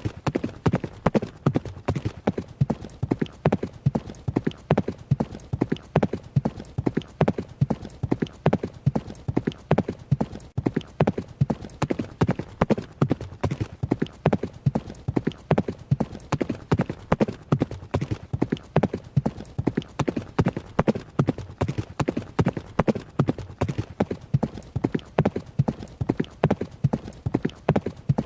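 Horse's hooves running, in a steady, even rhythm of hoofbeats, several strikes a second without a break.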